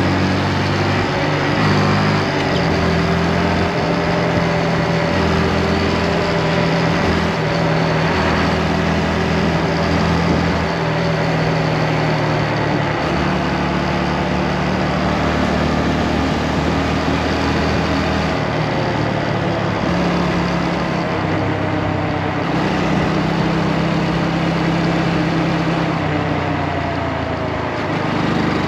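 Motorcycle engine running under way, its pitch shifting and gliding gently as the speed changes, with a steady rush of wind noise over it.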